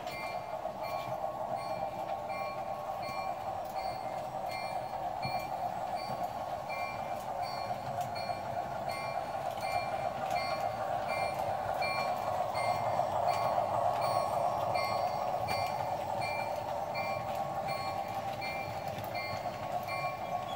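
Sound-equipped Flyer Chief Baldwin diesel switcher, an S-gauge model train, running with a string of freight cars: a steady running drone that grows louder about halfway through as the train comes closest. Over it, the locomotive's sound unit rings its bell in an even rhythm.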